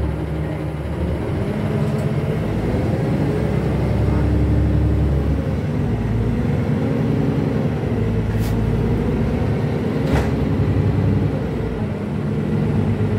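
NefAZ 5299.40 city bus's engine and drivetrain heard from inside the passenger cabin while under way, the engine note rising and falling with speed. Two short clicks about a second and a half apart in the latter half.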